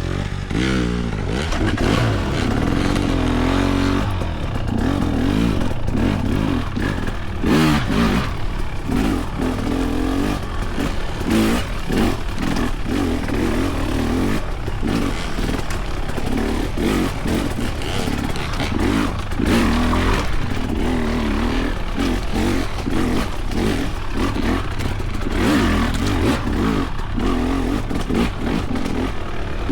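Husqvarna TX300's 300cc two-stroke single-cylinder engine lugging at low revs up a rocky creek bed. The engine note rises and falls with the throttle, over frequent clattering knocks.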